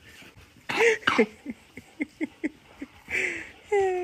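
A person laughing: a breathy outburst, then a quick run of short falling 'ha' pulses, about five a second, with another breath toward the end.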